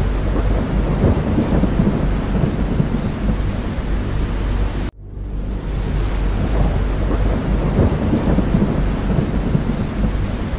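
Steady heavy rain over a continuous low rumble. About five seconds in, the sound cuts out sharply for an instant and swells back in, where the ambience loop restarts.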